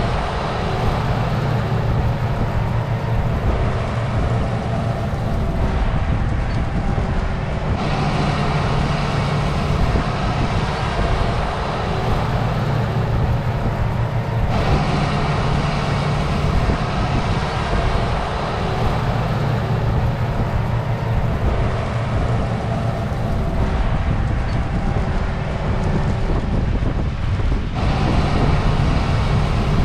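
Harvest machinery's diesel engines running steadily in a continuous mechanical drone, with a few sudden changes in tone where one shot gives way to another.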